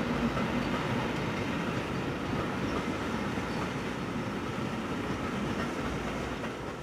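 Train of coaches rolling across an iron arch bridge: a steady rumble and clatter of wheels on the rails that fades toward the end as the train draws away.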